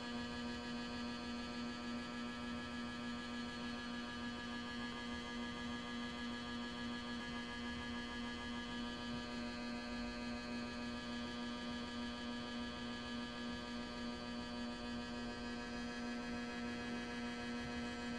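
A steady, unchanging electrical-sounding hum: one low tone with many overtones above it.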